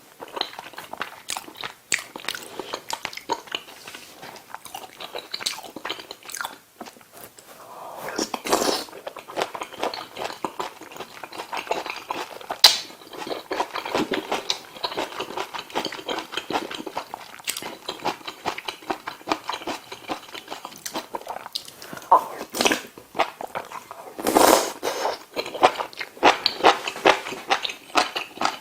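Close-miked eating of pork-belly kimchi stew with ramen noodles and curry rice: continuous chewing and biting with many short sharp clicks, and louder noisy spells about a third of the way in and again near the end.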